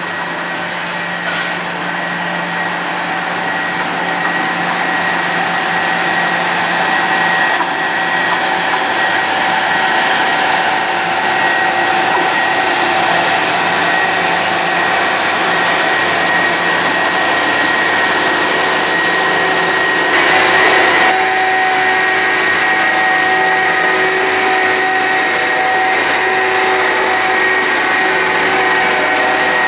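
Yellow Network Rail on-track maintenance machine running slowly past, its diesel engine running with a steady high whine. The sound grows louder over the first several seconds as the machine approaches, then holds steady as it draws alongside.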